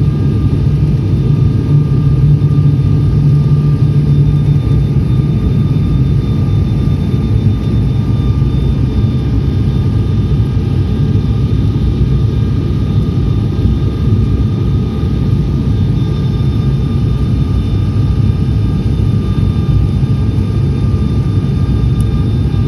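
Steady cabin noise inside a turboprop airliner descending to land: a loud, even low rumble with faint steady whining tones above it.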